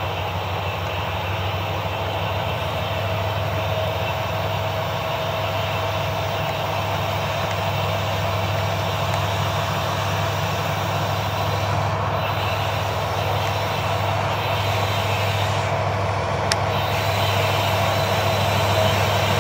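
Approaching Norfolk Southern diesel-electric locomotives heard from a distance: a steady low engine hum with a faint higher whine, growing slightly louder as the train nears.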